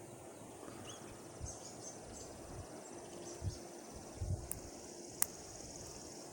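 Quiet outdoor ambience with insects trilling high and faint, while a brass padlock is picked. A few soft bumps and one sharp click come from the pick and tension wrench working the lock.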